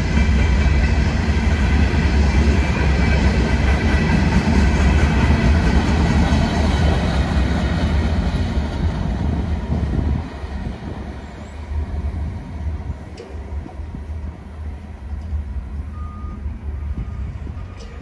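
CSX freight train of open hopper cars rolling past, with a heavy steady rumble of wheels on rail and thin high ringing from the wheels. About ten seconds in the sound drops suddenly to a quieter, more distant rumble.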